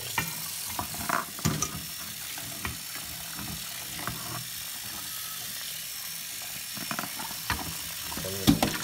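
Hot tap water running into a pot of water in a stainless-steel sink while hands turn geoduck clams in it, with scattered knocks and clatters of shell against the pot, the loudest near the end. The hot water is scalding the geoducks so that their skin loosens for peeling.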